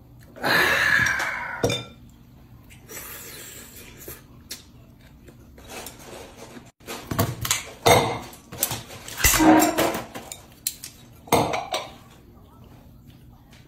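A loud slurp of noodles near the start, then chopsticks, ceramic bowls and a steel dish clinking and knocking against each other and the table, with several sharp clinks and a dull thud of a bowl set down.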